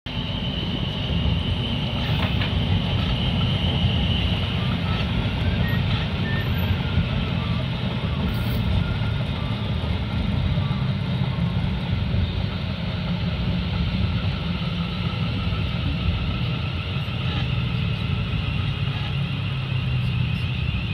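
Steady low rumble of a moving road vehicle, with a faint high whine that fades out early and returns near the end.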